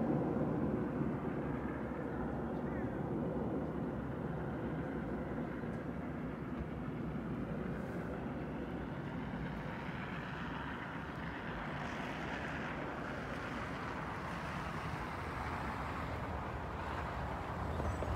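Road traffic: cars driving past on a snowy road, a steady hum of tyres and engines, loudest as a car passes right at the start and then settling to a lower, even level.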